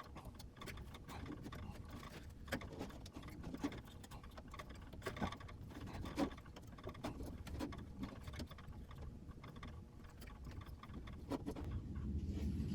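Hands working a stretched urethane tire into the groove of a bandsaw wheel, with scattered faint taps, clicks and rubbing at irregular intervals.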